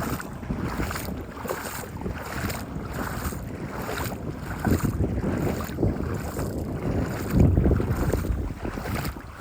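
Footsteps wading through shallow floodwater, sloshing and splashing at a steady walking pace of about one and a half steps a second, with wind buffeting the microphone.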